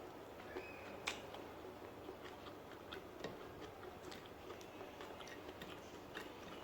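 Eating sounds: irregular small clicks and crackles of chewing, with one sharper click about a second in.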